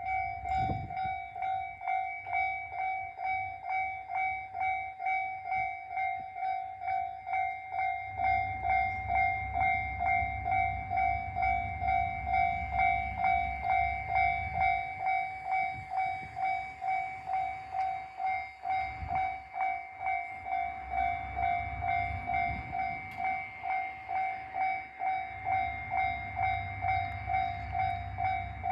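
Japanese level-crossing warning alarm starting up and ringing in a steady electronic ding-ding pattern, about two strikes a second. About eight seconds in, the low rumble of a diesel train's engine joins it and swells and fades.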